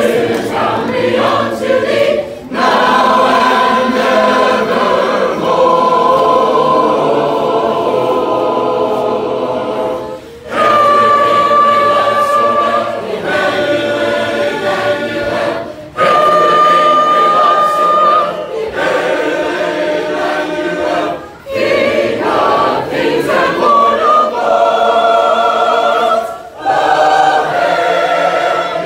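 Mixed congregation of adults and children singing a hymn a cappella in parts. The phrases are held, with a brief pause for breath every few seconds.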